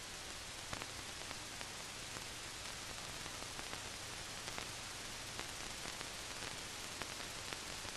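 Steady hiss with scattered faint clicks and crackle: the surface noise of an old film soundtrack during a pause in the narration.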